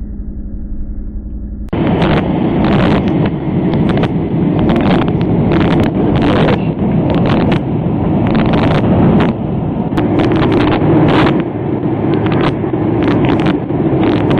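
Aircraft cabin noise in flight: a steady engine drone, then, about two seconds in, a sudden switch to a louder, rougher rumble with frequent irregular sharp knocks and crackles.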